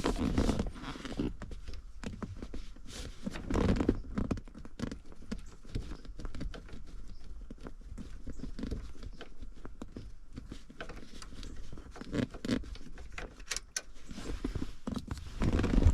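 Irregular light clicks and metallic rattles of hand-tool work as a nut is undone and a bracket is taken off the heater control lever of a 1969 VW Beetle.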